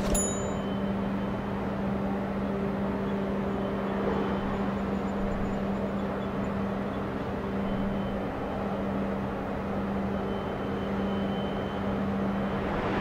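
Harbour machinery: a steady engine drone with a constant low hum over a wash of distant port noise. A brief sharp click comes right at the start.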